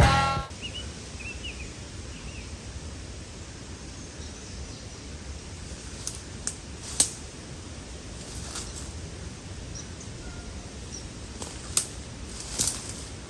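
Quiet rural outdoor ambience: a low steady rumble with a few short bird chirps in the first couple of seconds, and several sharp clicks or snaps scattered through the middle and near the end. A music track cuts off in the first half-second.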